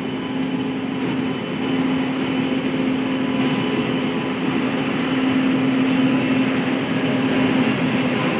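WAG-9H electric locomotive moving slowly along the platform line, giving a steady hum with one held low tone that grows slightly louder as it draws closer.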